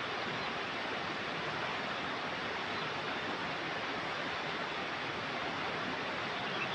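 Steady rushing of flowing river water, an even, unchanging noise.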